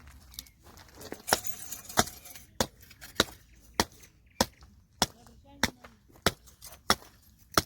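A steady series of sharp knocks, about eleven evenly spaced strikes a little more than half a second apart, starting about a second in.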